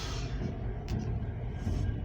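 Norfolk Southern grain hopper freight train rolling past with a steady low rumble.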